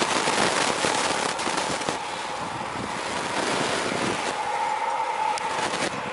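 Eurofighter Typhoon's twin EJ200 jet engines running as it taxis: a steady high whine over a loud crackling rush of jet noise, densest in the first two seconds.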